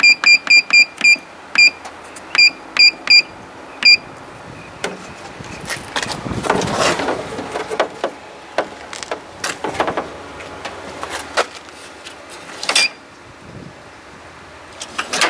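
Front-panel keypad of an HP large-format inkjet plotter giving short high beeps as its buttons are pressed, about ten in the first four seconds. About six seconds in comes a couple of seconds of mechanical rattling, then scattered clicks and clunks, and a last beep near the end.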